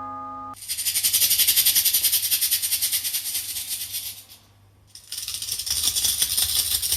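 The end of a ringing doorbell chime cuts off, then a maraca-like rattle is shaken fast for about four seconds, stops briefly, and starts rattling again.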